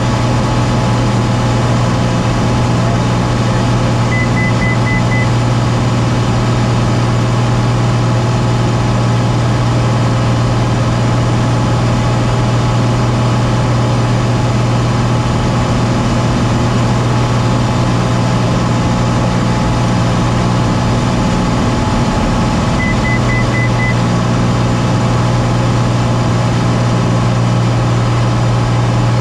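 Small airplane's engine droning steadily and loudly during a descent. Twice, about four seconds in and again near the end, a short run of high beeps sounds over it.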